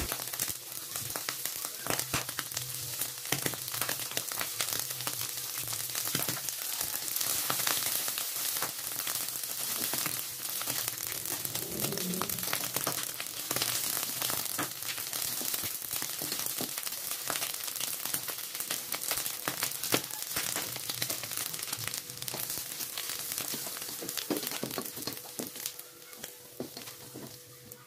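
Salted squid, soaked in water beforehand, frying in hot oil in a wok: a steady sizzle full of small crackling pops, with the spatula stirring now and then. The sizzle dies down near the end.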